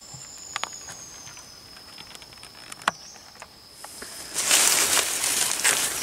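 A few light clicks and a thin, high, steady whistle. Then, from about four seconds in, loud rustling and crackling of dry leaves and undergrowth.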